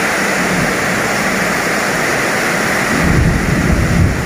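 Heavy rain falling steadily. About three seconds in, a low rumble joins it.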